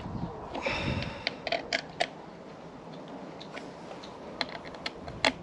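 Hands refitting a motorcycle's instrument clock unit: scattered light clicks and taps, with a brief rustle about a second in and a sharper click near the end.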